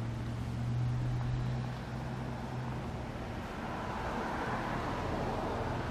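Passing road traffic: a low, steady vehicle hum, then a broad rush of a passing car swelling over the last couple of seconds.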